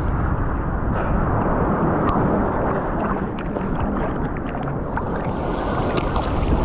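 Seawater sloshing and splashing around a waterproof GoPro held at the ocean surface in rough surf, with small knocks and splashes throughout and a brighter hiss of splashing water from about five seconds in.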